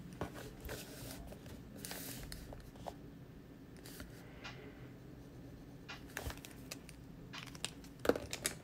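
Fine-tip ink pen scratching across sketchbook paper in short strokes, with the hand brushing and shifting the page, and a few sharp clicks about eight seconds in.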